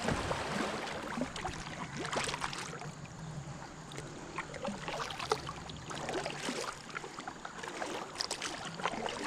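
Kayak moving through a river riffle: water rushing and splashing around the hull, with scattered short splashes and knocks of the paddle.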